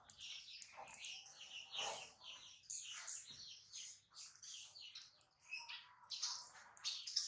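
Small birds chirping and twittering in a dense, continuous chatter of short high calls.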